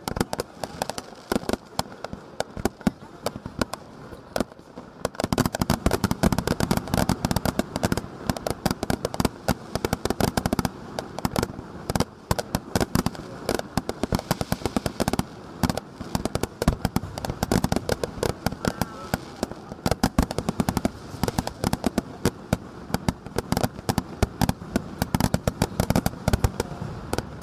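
Aerial fireworks shells bursting in rapid succession, a continuous barrage of bangs and crackles that thickens into a denser, louder volley about five seconds in.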